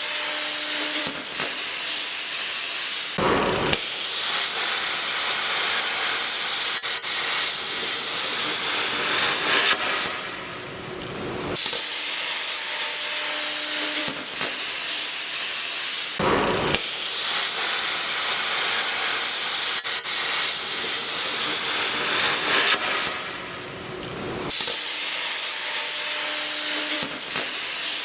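Plasma cutter cutting: a loud, steady hiss of the arc and compressed-air jet, which eases off for about a second and a half twice.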